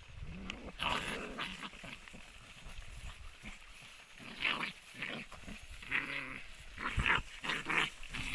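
Two desi (Indian street-dog) puppies fighting, growling in short, irregular bursts, busiest near the end.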